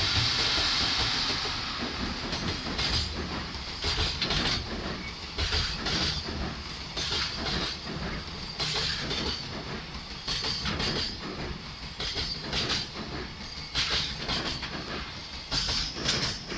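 An EF81 electric locomotive passing close by, loudest in the first second, then a long freight train of container wagons rolling past, their wheels clacking over rail joints in regular pairs about every second and a half.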